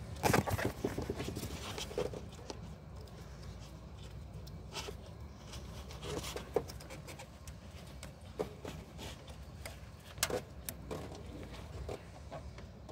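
Hands working a plastic wiring connector and reaching in around the engine: scattered small clicks and scrapes, busiest just after the start, over a steady low rumble.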